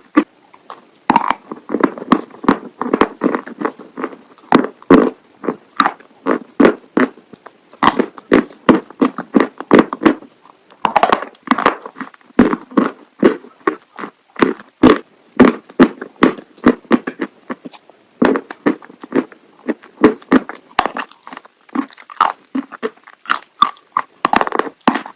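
Close-miked biting and chewing of chalk: a dense, irregular run of crisp crunches, several a second, with louder bites now and then.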